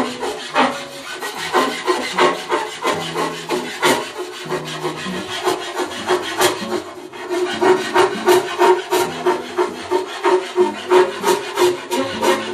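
A hand file rasping back and forth along the cut edges of a white board panel, smoothing down freshly cut doorways. The strokes come in an even rhythm of about two a second, echoing in a tiled room.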